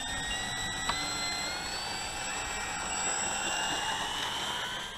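Electric motors and propellers of radio-controlled Durafly Spitfire model planes whining on the ground run, the pitch rising over the first two or three seconds as they throttle up, then holding steady.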